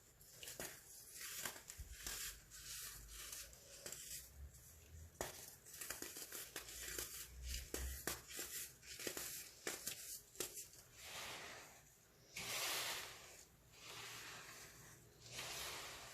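Compressed baking soda being crushed, with rapid crisp crunches and crackles. About two-thirds of the way through, the sound changes to two longer gritty hissing swells as the powder crumbles.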